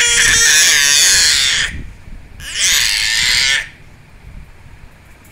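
A baby screaming: two loud, high-pitched screams, the first breaking off under two seconds in and the second, after a short pause, lasting about a second.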